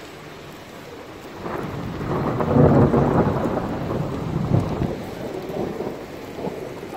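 A rumble of thunder swells about a second and a half in, is loudest a second or so later, then rolls away slowly, over a steady hiss of rain.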